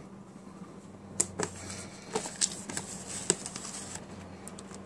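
Fingers grabbing shredded cheese out of a plastic container: a run of sharp taps and rustles against the plastic, about one to three and a half seconds in, over a steady low hum.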